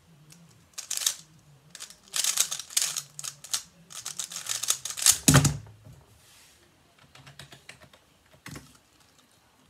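Plastic 3x3 speed cube being turned fast: rapid clattering clicks of the layers in bursts. About five seconds in comes a loud thump as the solve ends, the cube put down and the timer stopped. Fainter, scattered clicks follow.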